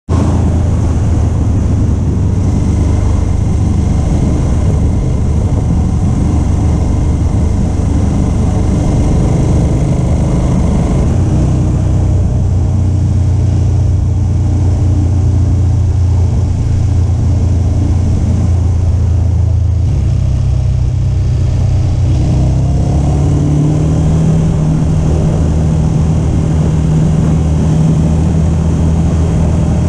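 KTM 1290 Super Adventure S V-twin engine running steadily as the motorcycle is ridden along a road, heard from an onboard camera. The engine note steps up twice in the last third as the revs rise.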